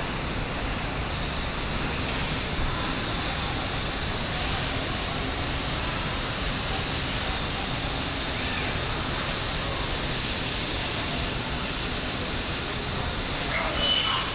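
Steady factory-floor noise of a car assembly line: an even hiss of machinery and air that gets brighter about two seconds in.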